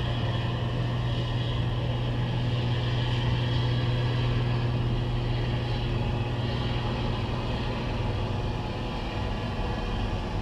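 Combine harvester running steadily while picking corn: a constant engine and machinery drone.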